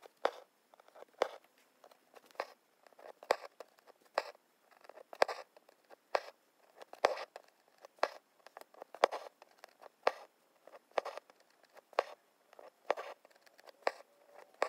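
Hand embroidery: a needle piercing fabric held drum-tight in an embroidery hoop and thread being pulled through it. The stitches make short, sharp pops and rasps, about one a second.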